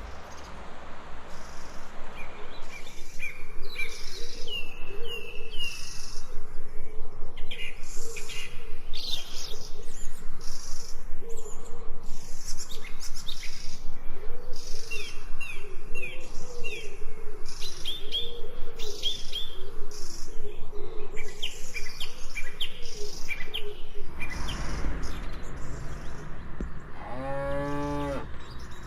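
Small birds chirping and trilling, over a steady rhythm of footsteps. Near the end comes a brief, low, pitched call.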